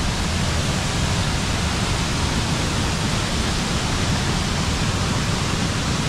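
A 25-metre waterfall at low flow pouring into its plunge pool: a steady rushing of water.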